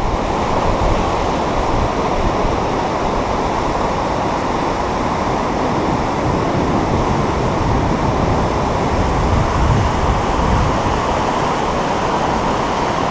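Whitewater of a rocky river rapid, rushing steadily.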